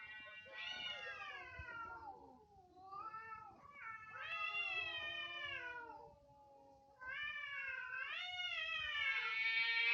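A tomcat caterwauling: long, drawn-out yowls that rise and fall in pitch, one after another, with a short lull about six seconds in. These are the yowls of cats mating.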